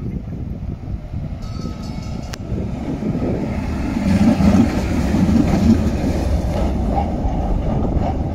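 La Brugeoise-built PCC heritage tram passing close by, its wheels rumbling on the rails. It grows louder and is loudest about halfway through as the car goes past.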